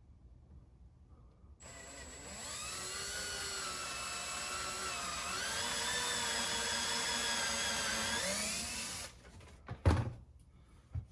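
Power drill with a step bit running for about seven seconds as it bores a small hole in a dash panel. Its motor whine shifts in pitch midway, then stops, followed by a single knock.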